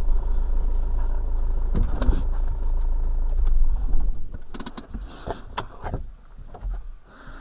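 Camper van engine and road rumble heard inside the cab, which drops away about four seconds in as the van comes to a stop, leaving a few clicks and knocks.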